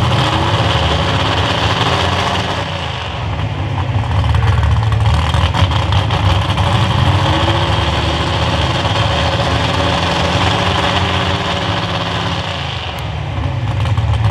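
Super Stock 4x4 pulling truck's engine running steadily while hooked to the sled, not yet pulling, easing off briefly twice: about three seconds in and near the end.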